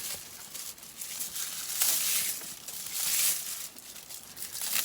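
Plastic jacket of an Ethernet cable being torn open along its nylon rip cord and pulled off: a crinkling, tearing rasp, loudest about two seconds in and again just after three seconds.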